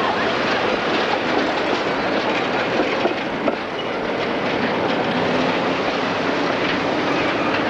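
A tram passing close by on street track, its wheels running over the rails and junction, with road traffic around it. The noise is steady throughout, with a couple of short knocks about three seconds in.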